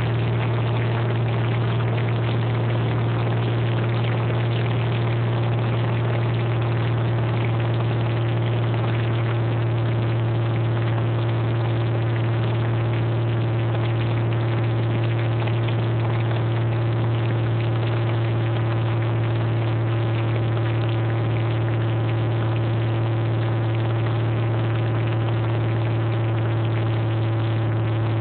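Cessna 210's single piston engine and propeller droning steadily, heard inside the cabin on final approach. The tone holds steady with no change in power.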